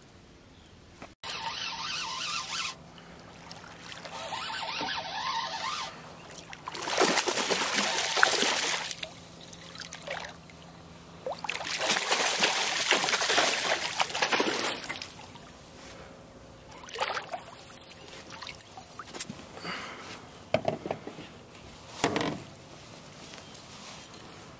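A hooked bass thrashing and splashing at the water's surface in several bursts a few seconds long, with quieter stretches of lapping water between them. A few sharp knocks come in the later part.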